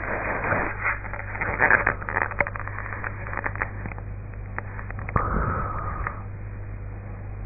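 Crackling and clicking noise for the first few seconds, then a single soft snoring breath from a sleeping woman lasting about a second, over a steady low hum.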